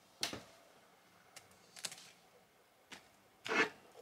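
A few light clicks and knocks from a small quilted clutch bag being handled and lifted from a shelf, about five separate taps, the loudest near the end.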